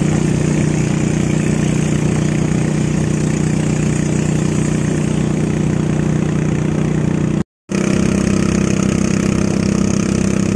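Motor of a small wooden river boat running steadily under way. It cuts out for a moment about seven and a half seconds in, then carries on at the same level.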